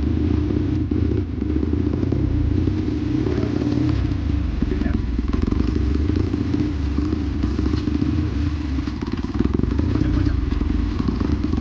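Dirt bike engine running steadily while riding, with scattered clatter.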